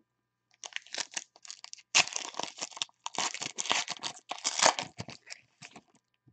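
Foil wrappers of trading card packs crinkling and tearing as the packs are handled and ripped open. It is a run of crackling rustles, loudest about two seconds in and again near the end.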